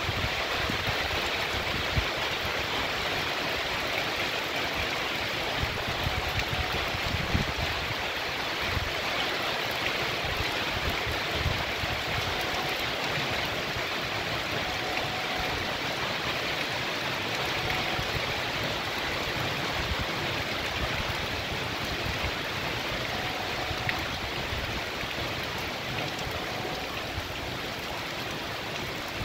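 Heavy rain pouring steadily, with water running over the street surface.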